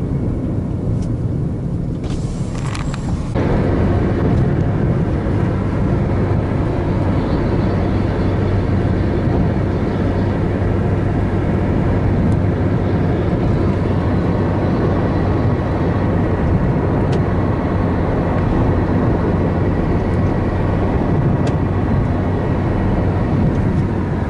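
Steady road and engine noise heard inside a car's cabin as it travels at speed along an expressway, a continuous rumble with a low hum underneath. It gets louder about three seconds in and then holds steady.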